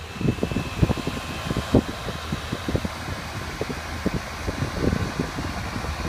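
Outdoor AC condensing unit running just after being switched back on following a refrigerant recharge: the condenser fan blowing steadily, with faint steady high tones and irregular low gusts of air buffeting the microphone.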